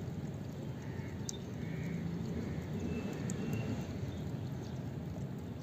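Steady outdoor background noise with faint chicken clucks now and then, and a few light clicks.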